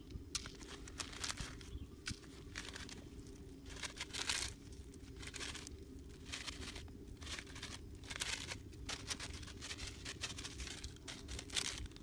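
Irregular bursts of rustling and crinkling as a hand handles a plastic bag of grain bait and scatters the grain through the grass.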